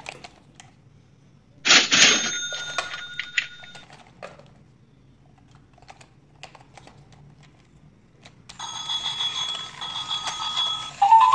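Battery-powered toy motorcycle handled with small plastic clicks. A brief electronic ringing sound comes about two seconds in. Later the switched-on toy plays electronic sound effects, and a jumpy electronic tune starts near the end.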